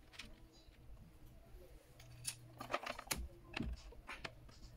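Clicks and light knocks of a thin metal keyboard backplate being pressed and seated into the plastic keyboard frame, a few sharp ones bunched about halfway through.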